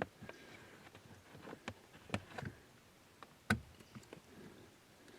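Scattered clicks and taps of a stainless steel pedal cover being pried and worked onto a car's brake pedal, the sharpest knock about three and a half seconds in.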